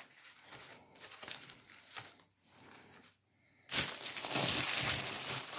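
Sheets of filo pastry and baking paper crinkling and rustling as they are gathered and folded by hand: soft, scattered rustles at first, then a louder, continuous crinkling from a little past the middle.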